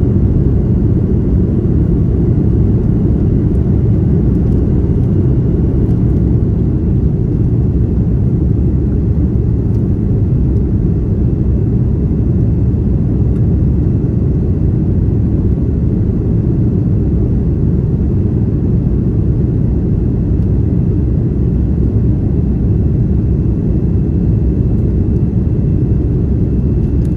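Steady low rumble inside the cabin of an Airbus A330-300 climbing out after takeoff: its Rolls-Royce Trent 772 turbofan engines and the airflow, heard from a window seat beside the wing, with a faint steady high whine over it.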